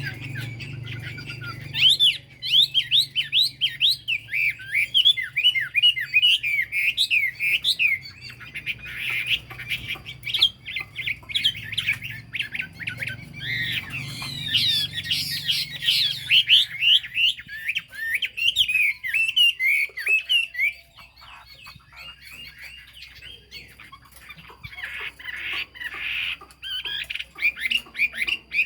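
Chinese hwamei (họa mi) singing a long, fast run of varied, sharply sliding whistled notes. The song thins out about two-thirds of the way through and builds up again near the end.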